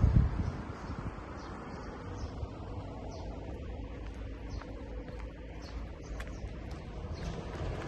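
A bird repeating short, high, falling chirps about once a second over a steady low rumble.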